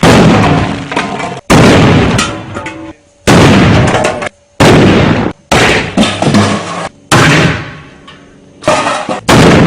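A string of about eight loud blasts in under ten seconds, each hitting suddenly and dying away over about a second, several cut off abruptly before the next.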